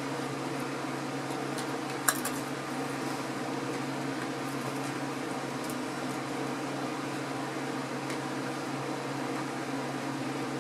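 Steady hum of an electric fan running in a small room, with one brief crackle about two seconds in.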